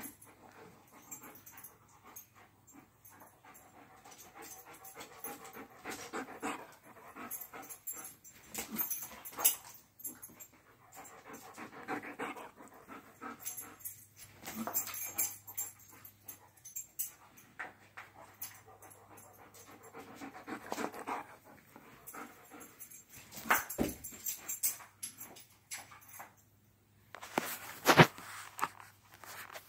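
A dog making soft sounds in spells a few seconds long, some with a faint whining pitch, with a few sharp knocks near the end.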